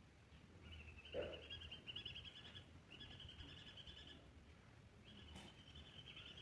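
Faint, rapid high-pitched chirping trills in three runs from a small animal, with one soft thump about a second in.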